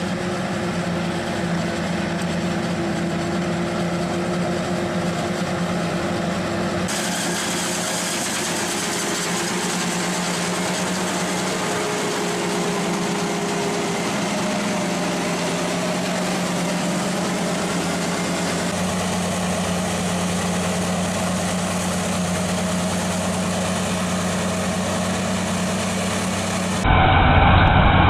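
Heavy farm machinery engines running steadily with a low hum. The sound changes abruptly about seven seconds in, and again near the end, where it turns louder and duller.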